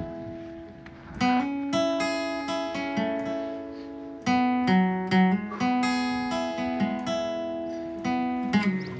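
Acoustic guitar music: a run of plucked notes and chords that ring on and overlap one another.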